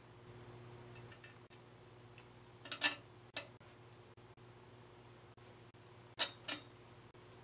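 Two pairs of light metallic clicks, about three seconds apart, as the folding bike's hinge clamp plate and frame parts are handled, over a steady low hum.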